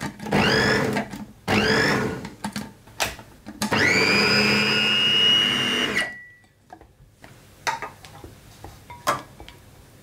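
Panasonic food processor chopping cooked chickpeas: a few short pulses, each spinning up with a rising whine, then a longer continuous run of about two seconds that stops abruptly about six seconds in. A few light clicks follow near the end.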